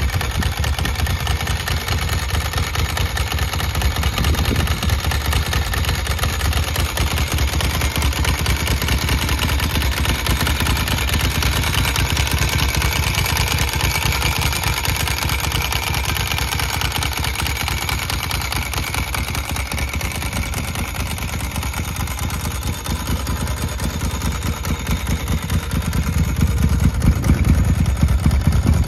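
Ducati MH900e's air-cooled 900 cc two-valve L-twin idling steadily with the clatter of its open dry clutch, growing louder near the end.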